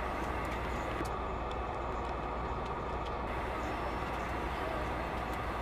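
Cabin drone of a Bombardier Dash 8-Q400's Pratt & Whitney PW150A turboprop engines and propellers running on the ground: a steady low hum with a constant tone over it.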